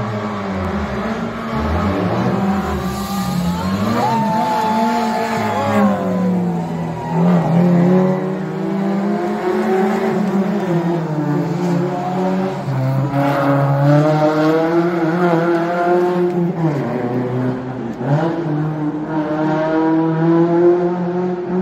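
Car engines revving hard as racing cars accelerate past, the engine note rising and falling in pitch as each one goes by.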